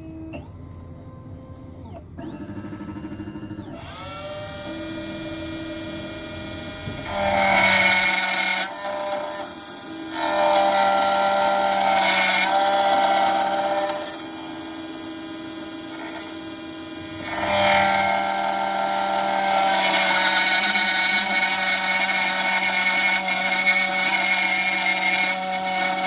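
Sec-9 electronic key-cutting machine's spindle spinning up with a rising whine, then whining steadily as its cutter mills a high-security laser-cut car key blade. The whine grows louder in stretches as the cutter bites into the metal and eases off between passes.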